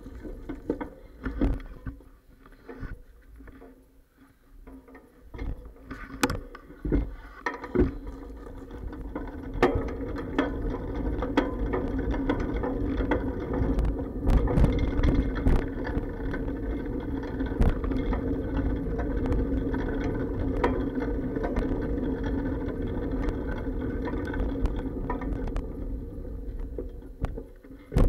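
Irregular clacks and bumps from a bicycle ride, picked up through a sealed waterproof camera case. A steady, muffled hum builds up after several seconds and holds as the bike rolls along.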